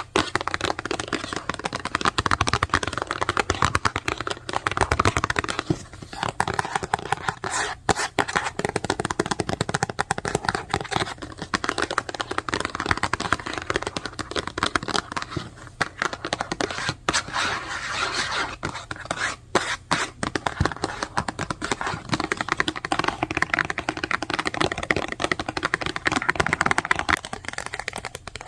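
Fast typing on a computer keyboard: a dense, continuous clatter of rapid keystrokes, broken by a few brief pauses, around 8 s, 17 s and 19.5 s in.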